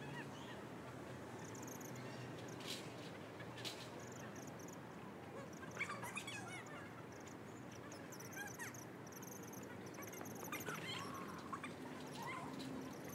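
Faint outdoor ambience: a low steady background noise with small birds chirping in short, high runs of notes scattered through, plus a few squeaky calls.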